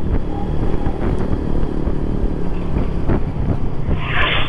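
Wind rumble on a helmet microphone mixed with the running of a Suzuki Shogun SP 125 motorcycle riding along, with a short burst of hiss near the end.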